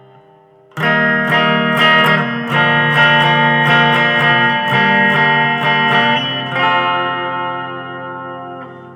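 Guitar strumming chords, with the song dropped to a lower key: repeated strums begin about a second in, then the last chord is left to ring and fade out near the end.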